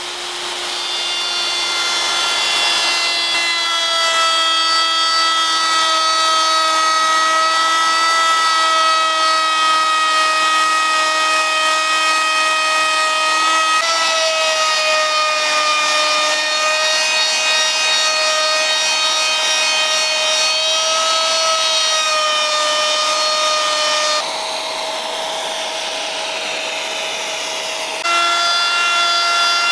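Plunge router with a spinning bit cutting a groove in a solid oak board: a steady high motor whine that builds up over the first few seconds, drops in level for a few seconds near the end, then comes back.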